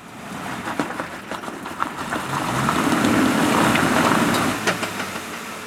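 An off-road 4x4's engine revving under load while its tyres spin and slide in mud, throwing up a rushing spray of mud and small stones with scattered clicks and knocks. The sound swells to its loudest about the middle and eases off near the end, as the tyres fail to get traction on the slope.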